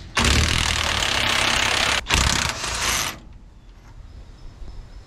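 DeWalt cordless impact wrench hammering on a bolt in two bursts, the first about two seconds long, then after a brief pause a second of about a second.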